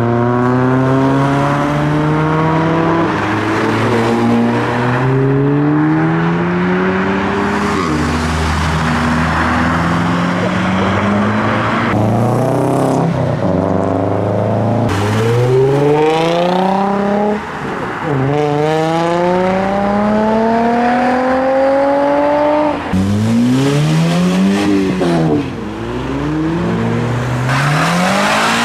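Modified car engines revving hard and accelerating away, the pitch climbing through each gear and dropping at each shift. Later on one car is revved sharply up and down several times in quick succession.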